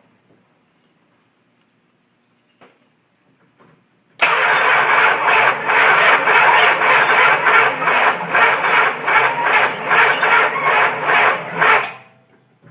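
1969 Dodge Charger's starter cranking the engine for about eight seconds, beginning about four seconds in, with an even pulse of about three a second, and the engine never catching. The cranking sounds like a dead or dying battery, although the battery load-tests good.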